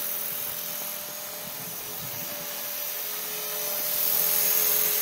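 Electric radio-controlled model helicopter flying overhead: a steady motor-and-rotor whine that grows louder near the end as it passes close.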